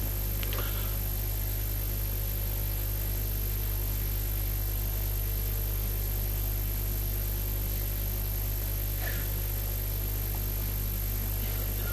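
Steady low electrical hum with an even hiss, with no speech, and a faint short sound about half a second in and another about nine seconds in.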